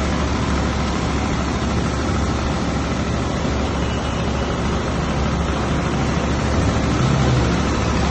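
Steady road traffic: vehicle engines running with a low rumble under a continuous hiss.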